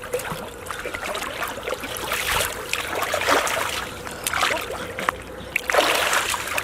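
Water splashing and sloshing in irregular bursts, stronger about halfway through and again near the end.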